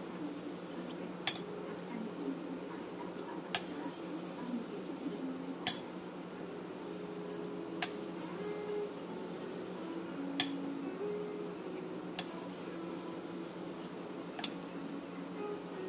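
A small koma nagura stone rubbed back and forth on a Nakayama whetstone to raise slurry, a soft wet grinding with a sharp click about every two seconds.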